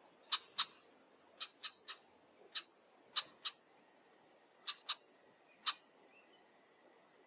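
A bird giving short, sharp call notes, singly and in quick twos and threes, about a dozen in all.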